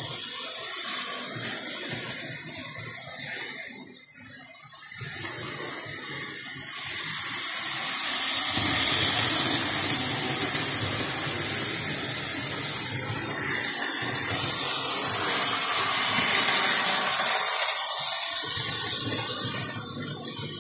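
Lionel O-27 model train running around a loop of three-rail metal track: a steady whirring rush of motor and wheels on the rails that swells and fades as the train comes nearer and goes farther off.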